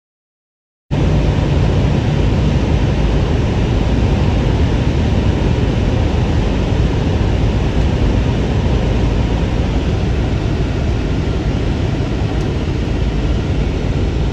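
Steady road noise of a car driving on a highway, a loud even rush that starts abruptly about a second in and holds level.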